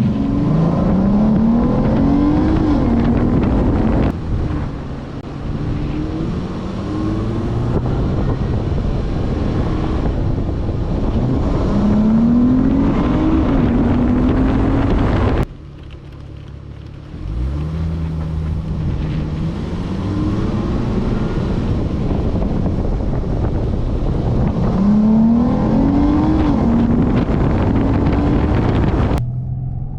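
2018 Dodge Charger engine accelerating hard, its pitch rising, dropping at an upshift and rising again, in three runs separated by sudden cuts.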